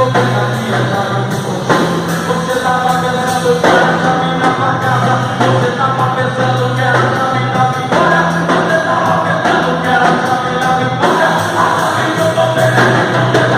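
Music: a gospel song with a sung voice over a band, with long held bass notes under the melody.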